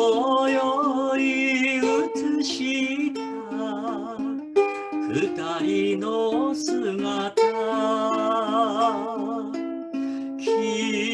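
Ukulele playing an instrumental interlude of a slow Shōwa-era ballad, with a melody line held over the chords whose notes waver with vibrato.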